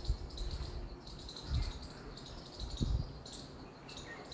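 Crickets chirping in repeated short bursts, with a couple of soft low thumps in between.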